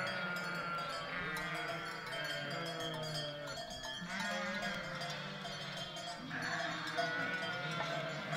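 Flock of Dalmatian pramenka sheep and lambs bleating, many calls overlapping at once with no break.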